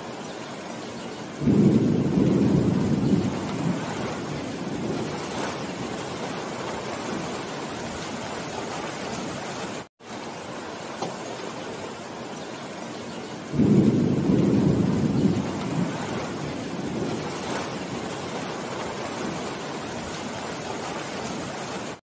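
Steady heavy rain falling on leafy trees, with two deep rolls of thunder, each breaking suddenly and fading over two to three seconds: one about a second and a half in and one about twelve seconds later. The sound cuts out for an instant just before the middle.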